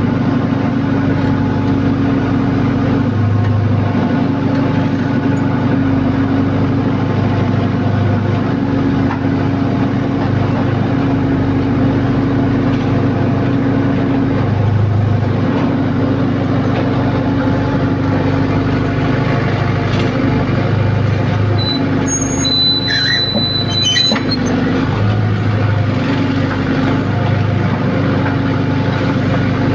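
Heavy diesel engine running steadily under load, its note wavering every few seconds. A few brief high-pitched squeals come about two thirds of the way through.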